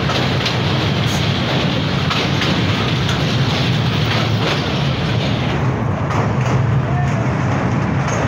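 Train running across a steel truss bridge: a steady, loud rumble with faint rattling clicks. The higher hiss thins out for a couple of seconds near the end.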